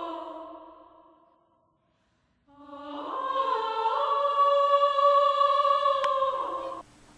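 Music of held, choir-like vocal chords. The first chord fades away in the first second and a half, and after a brief silence a second sustained chord swells in and cuts off abruptly near the end.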